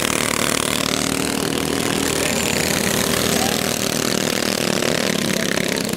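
Small go-kart engines running steadily as several karts race around the track.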